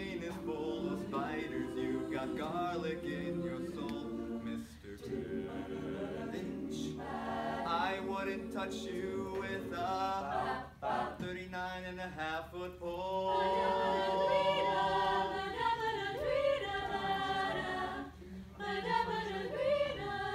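Mixed-voice high-school a cappella group singing in harmony with no instruments, holding a sustained chord about two thirds of the way through.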